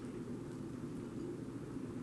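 Steady low hum of room noise, with a few faint clicks of a cat chewing food off a plate.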